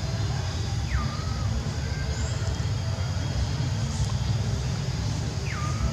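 Steady low outdoor rumble, with a thin whistled call heard twice, about a second in and near the end: each a quick falling note that settles into a short held tone.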